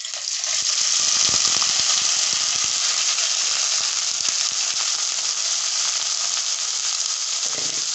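Sun-dried omena (small sardines) dropped into hot oil, bursting into a loud, steady sizzle that swells over the first second. A slotted metal spoon scrapes and clicks against the pan as the fish are spread out.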